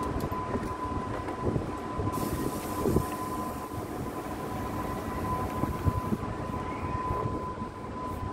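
Steady low rumble of working ship engines, with a constant high whine running over it and a few light knocks.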